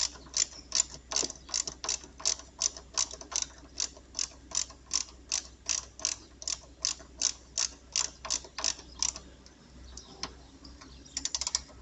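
A ratchet tool clicking in an even rhythm, about three clicks a second, as the bolt on the chassis ground point is tightened. The clicking stops about nine seconds in, and a short quick run of clicks follows near the end.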